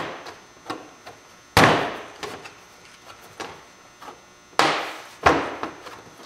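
Hard plastic body panel of an ATV being forcefully slapped and knocked into its mounts by hand: three loud sharp knocks with rattling tails, and lighter taps between them.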